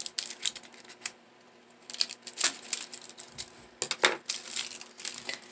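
Irregular clicking and rattling of a spool of pearl bead trim being handled, the strung beads and plastic spool tapping and clattering. There is a short pause about a second in and a louder knock about four seconds in.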